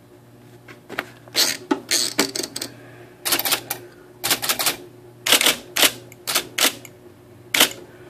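IBM electric typewriter with a Selectric-style type ball typing: a dozen or so sharp clacks in small clusters, over the steady hum of its motor. This is a test of a newly installed correction tape.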